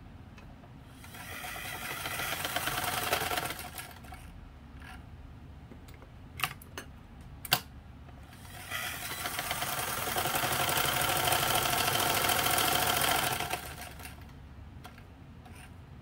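Singer 15 straight-stitch sewing machine driven by its electric motor, stitching fabric in two runs of a few seconds each that build up speed. The second run is longer and louder. Between the runs come two sharp clicks.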